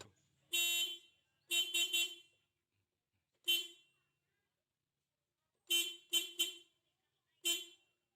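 Nissan Serena car horn sounding in a series of short beeps, singly and in quick runs of three, each at the same steady pitch. The horn works, tested after a new horn spiral cable (clock spring) was fitted in the steering wheel.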